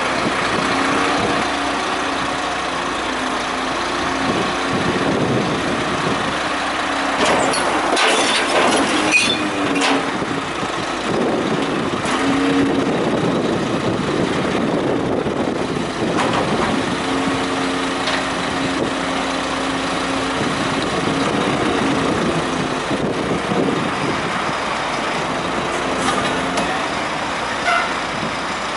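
Rubbish truck working, its engine and machinery giving a steady hum that rises and falls a little, with a cluster of metallic clanks and knocks about a quarter of the way through.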